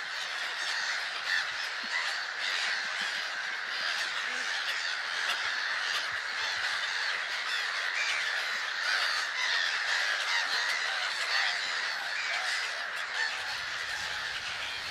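Waterbird nesting colony: a dense, unbroken chorus of many birds calling over one another.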